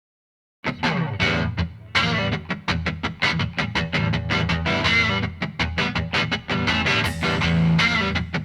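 Rock music with distorted electric guitar, starting abruptly after about half a second of silence.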